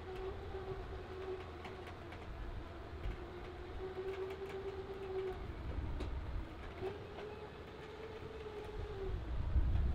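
Electric trailer winch whining steadily under load as it pulls an old Ford pickup up onto a flatbed trailer; it stops about five seconds in and starts again a moment later. Wind rumbles on the microphone, growing louder near the end.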